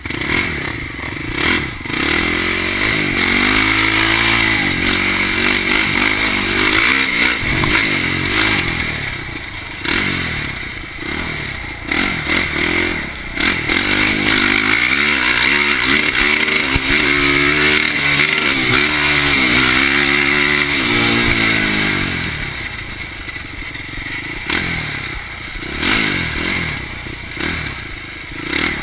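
2004 Polaris Predator 500 ATV's single-cylinder four-stroke engine revving up and easing off over and over in two long runs, dropping back to a lower, quieter note between them and near the end, with some clatter from the quad.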